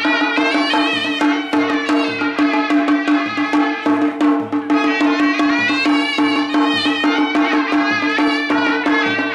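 Traditional Ladakhi welcome music played live: a high, wavering reedy melody over a steady held drone, with a steady drum beat.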